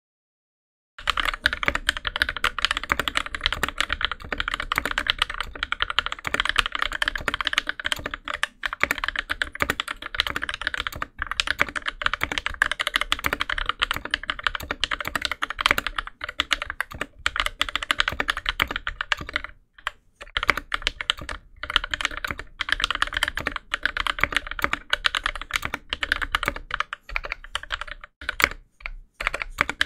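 Fast, continuous typing on an aluminium NK65 mechanical keyboard with NovelKeys Cream linear switches lubed with Krytox 205g0 and fitted with TX switch films, under GMK doubleshot keycaps. It starts about a second in and runs with only brief pauses, about two-thirds of the way through and again near the end.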